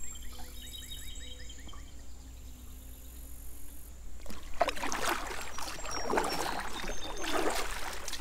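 Werner double-bladed kayak paddle dipping into river water stroke after stroke, with splashing and dripping off the blades that start about halfway through. Before that it is quiet, with faint quick high chirps in the first two seconds.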